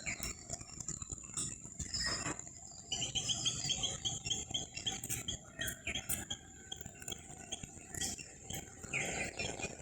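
Small birds chirping, with a quick run of repeated short notes from about three seconds in and another chirp near the end, over a steady high-pitched whine.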